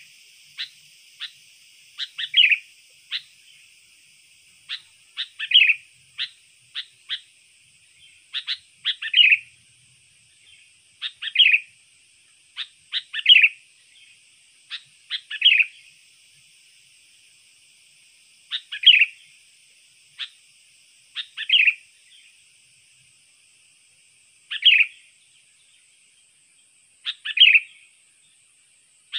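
Sooty-headed bulbul (kutilang) calling: a few quick sharp chips, then a louder slurred note, repeated every two to three seconds. A faint steady high whine runs underneath.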